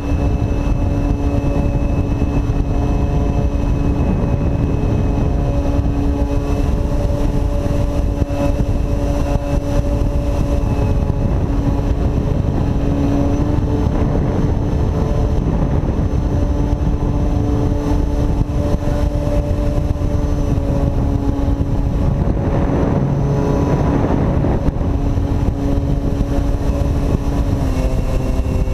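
Electric outrunner motor and propeller of a foam RC delta wing running steadily in flight as a steady whine, with heavy wind rush on the wing-mounted camera's microphone. The pitch dips briefly a few times near the end as the throttle changes.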